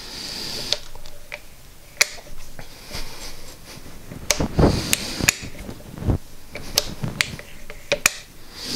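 Metal clicks and clunks from a hand-worked Kwik-Way cylinder boring bar as the bar is lowered into the cylinder for centring: about seven sharp clicks, with duller knocks around the middle.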